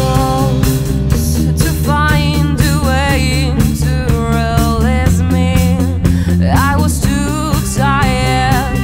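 Rock band music with drums, bass and guitars under a lead melody that wavers with vibrato and slides between notes.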